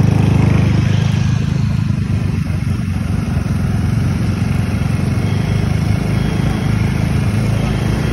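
Small motor scooter engines running steadily while riding along a road, a continuous low engine drone with road noise.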